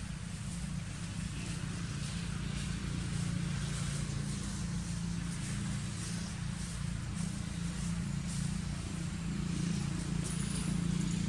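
A steady low hum, unchanging in pitch, with faint rustles and ticks of dry leaves as a baby macaque shifts and steps on the leaf litter.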